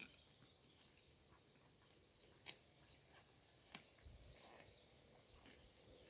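Faint grazing sounds of a cow cropping grass: a few sharp snaps of blades being torn off, seconds apart. A low thud comes about four seconds in.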